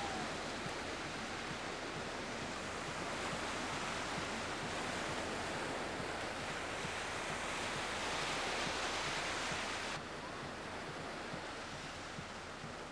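Ocean surf washing onto a sandy beach, mixed with wind buffeting the microphone. It swells a little around eight seconds in, then drops suddenly to a quieter level about ten seconds in.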